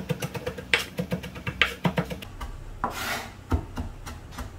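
Chef's knife mincing fresh ginger on a wooden cutting board: quick, irregular taps of the blade on the wood for about two seconds. About three seconds in comes a scraping sweep across the board as the minced ginger is gathered, followed by a single knock.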